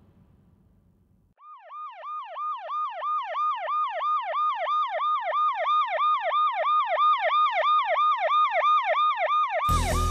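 Ambulance siren in a fast yelp, a rising and falling wail repeating about three and a half times a second, growing steadily louder. Near the end it is cut off by a sudden loud change of sound.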